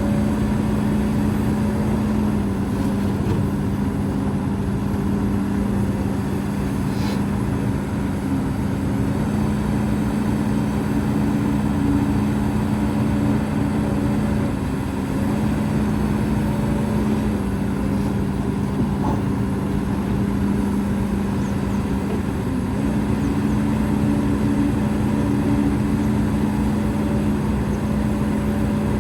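Hidromek HMK230LC excavator's diesel engine running steadily at working revs, with its drone dipping briefly in pitch a few times.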